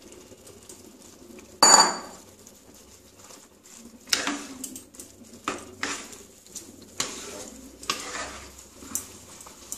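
Soya chunks tipped from a plastic bowl into a non-stick pan of sauce, with one sharp knock a little under two seconds in. Then a wooden spatula stirs and scrapes the pan in short strokes, roughly one a second.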